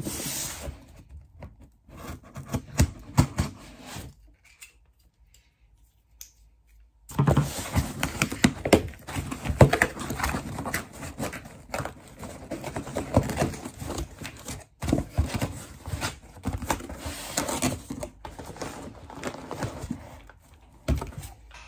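A cardboard shipping box being opened and unpacked by hand: rustling, tearing and knocking of cardboard and packing, with a few seconds' pause about four seconds in.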